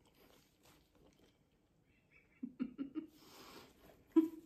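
A woman chewing crab meat with her mouth closed, faintly at first, then making short stifled hums in her throat: a quick run of four about halfway through and a louder single one near the end. It is a held-back 'mmm' of enjoyment.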